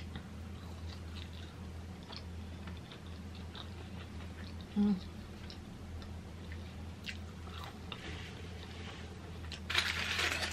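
Close-up chewing of a seasoned potato fry, with soft wet mouth clicks. Near the end comes a loud crinkle of aluminium foil as a foil-wrapped burger is handled.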